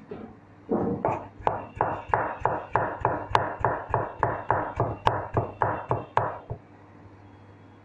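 Cleaver chopping on a plastic chopping board: a steady run of about twenty quick chops, about three a second, starting about a second in and stopping near the end.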